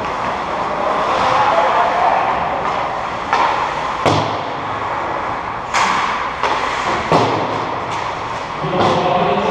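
Ice hockey play: skates scraping over the ice and a steady rink din, with about half a dozen sharp knocks and thuds of sticks, puck and boards spread through it.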